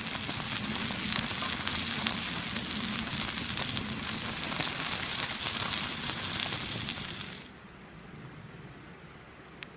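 Raw beef burger patty sizzling as it sears on a hot stone slab over a wood fire, a dense, even crackling hiss. About seven and a half seconds in the sizzle cuts off, leaving a much quieter background.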